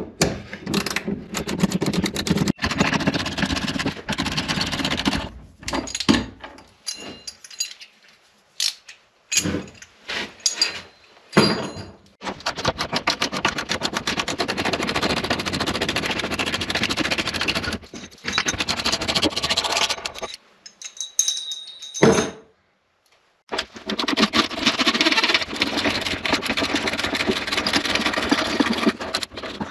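A power driver turning a 9/16 socket to unbolt the sink's legs and bracket: long runs of rapid rattling hammering that stop and start, with short trigger blips between them.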